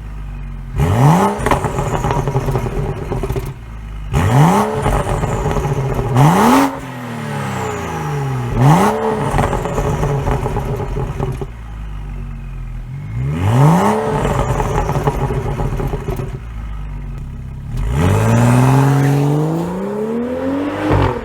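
BMW N55 turbocharged inline-six, fitted with a catless downpipe and tune but a stock rest of the exhaust, revved from a warm idle: about six quick blips that rise sharply and fall back to idle, the last held longer near the end.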